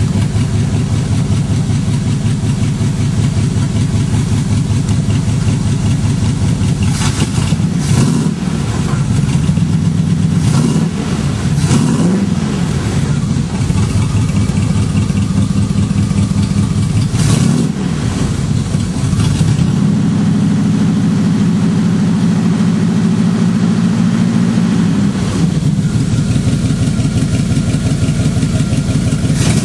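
A 1981 Corvette's 350 small-block V8 with side-pipe exhaust, heard from inside the car, idling while warming up after a cold start. It is blipped several times with quick revs that rise and fall, then held at a higher speed for about six seconds before dropping back to idle.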